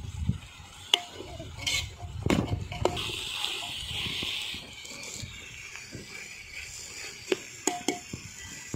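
Metal spoon stirring chopped onions in a metal cooking pot over a wood fire: a scraping, hissing stir with sharp clinks of the spoon against the pot, a few about a second in and more near the end.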